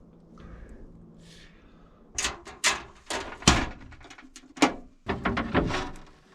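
A quick run of sharp knocks and clunks, about a dozen over four seconds, starting about two seconds in, like hard objects being handled and set down.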